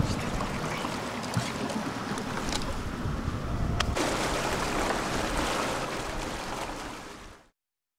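Sea water rushing past the hull of a sailing catamaran under way, with wind on the microphone and a couple of sharp knocks on deck. The rushing grows louder about halfway through, then fades out to silence near the end.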